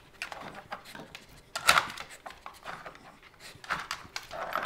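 Norfolk terrier sniffing and snuffling in short bursts as it noses over a plastic dog puzzle board, with small knocks of the plastic pieces, and one louder burst about two seconds in.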